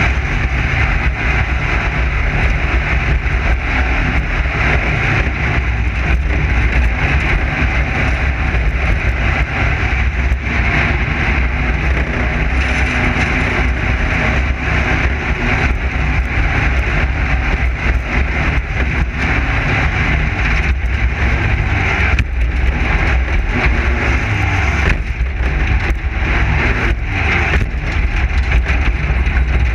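Class 9 desert race buggy running hard over rough ground: its air-cooled VW engine drones steadily, with frequent short rattles and knocks.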